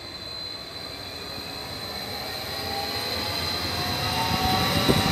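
Trenitalia ETR 170 (Stadler FLIRT) electric multiple unit approaching and passing close by, growing steadily louder, with a high steady whine over the running noise. The first sharp wheel knocks over the rail joints start right at the end.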